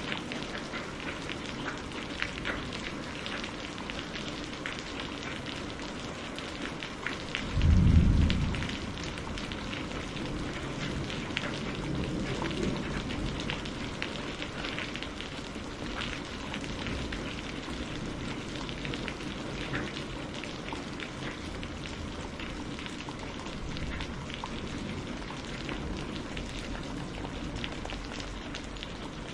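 Steady rain falling, with many small drops pattering and ticking on a surface. About eight seconds in, a short deep rumble of thunder swells and fades within about a second and a half.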